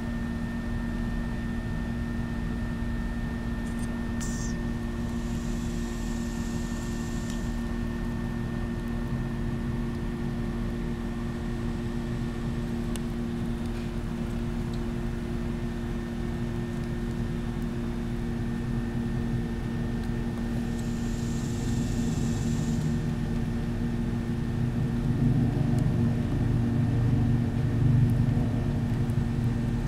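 Steady mechanical hum with a few constant tones, and a low rumble building near the end.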